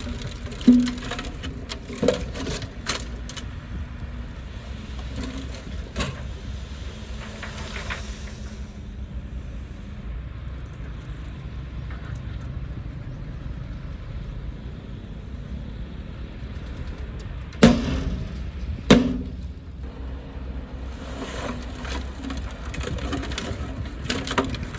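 Heavy earthmoving machine's engine running steadily with a low rumble, broken by several sharp clanks, the two loudest close together about three quarters of the way through.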